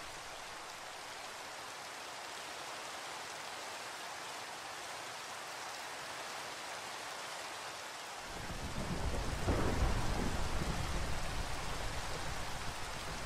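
Steady rain falling, with a roll of thunder coming in about two-thirds of the way through, loudest a second or two later and then slowly dying away.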